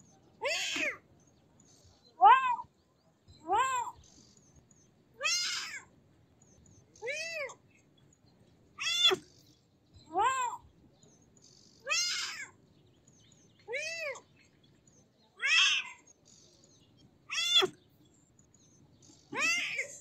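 A kitten meowing over and over: about a dozen short, high calls, one every one and a half to two seconds, each rising and then falling in pitch.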